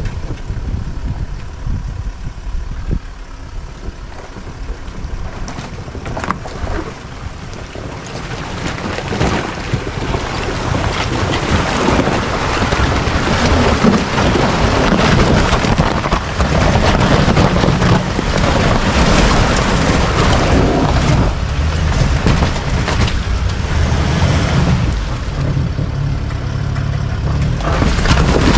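Land Rover Discovery 4 driving over an iced-over track, its tyres crunching and cracking through the ice over a low rumble, with wind buffeting the microphone. The noise grows louder from about eight seconds in.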